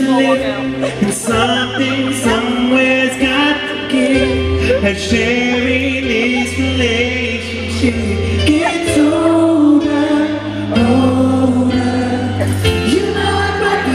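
Live pop concert: a male singer sings into a handheld microphone over an amplified backing track, with sustained bass notes that change every couple of seconds.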